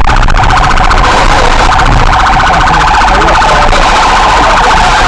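Loud emergency-vehicle siren sounding a rapid, steady pulsing tone.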